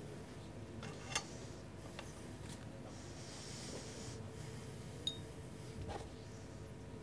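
Quiet room noise broken by sharp clinks of tableware, one about a second in and one about five seconds in that rings briefly, like a spoon knocking against a glass, with a softer knock just after.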